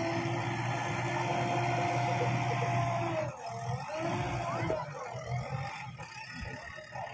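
JCB 3DX backhoe loader's diesel engine running under load as the front bucket digs into a pile of earth. Its note dips and climbs again about three seconds in, after which it runs quieter.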